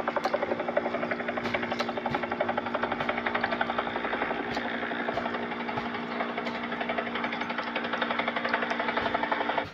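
Helicopter sound effect: a fast, steady rotor chop over a steady engine drone, cutting off suddenly at the end.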